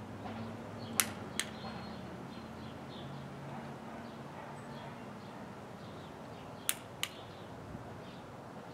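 Two pairs of sharp clicks, each pair a fraction of a second apart and the pairs several seconds apart, from a dog-training clicker pressed and released to mark the behaviour. Faint bird chirps and a steady low hum run underneath.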